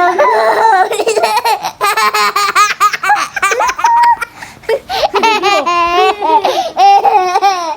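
A young child laughing hard, in peal after peal of high-pitched giggles, with a short break a little past halfway.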